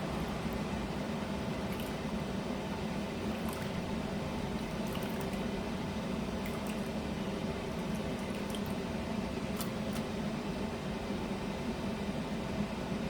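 Pot of ogbono soup simmering on a gas stove: a steady burner-and-pot noise with faint, scattered bubbling pops.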